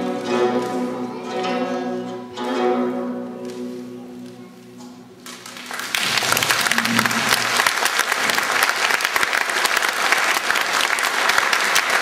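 An ensemble of guzheng (Chinese zithers) plays its closing plucked chords, and the last chord rings out and fades. About halfway through, audience applause breaks out and carries on steadily.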